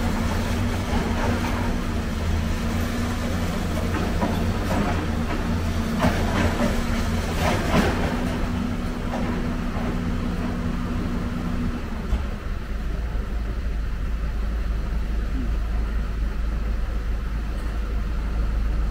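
Heavy diesel machinery running steadily while an excavator handles scrap metal in a dump truck bed, with several sharp metal clanks between about four and eight seconds in. About twelve seconds in the engine note changes to a lower, steady hum.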